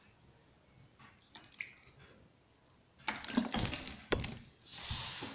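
Hands working a crumbly, stiff semolina-and-flour dough in a plastic bowl: faint at first, then a quick run of clicks and knocks about three seconds in and a soft rubbing rustle near the end.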